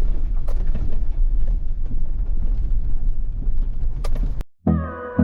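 Low rumbling noise with scattered knocks, which cuts off abruptly about four seconds in. Music with a steady beat begins right after, near the end.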